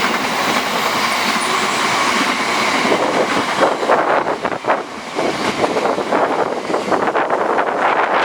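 Class 66-hauled intermodal freight train passing: a steady rumble of the wagons, turning from about three seconds in into a rapid, irregular clatter of wheels over the rail joints.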